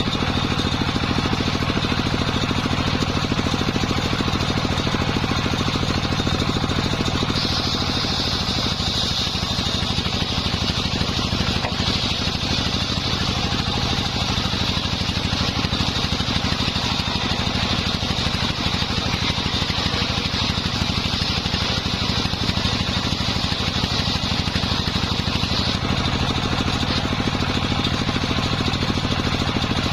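Engine-driven circular saw running steadily while cutting a wooden log into a beam. A high blade whine grows stronger from about seven seconds in until a few seconds before the end, as the blade works through the timber, over the steady drone of the engine.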